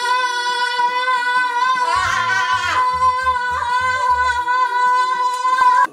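Girls singing one long held "ah" note over backing music with a low pulsing bass line. About two seconds in, another voice slides up and down over the held note for under a second.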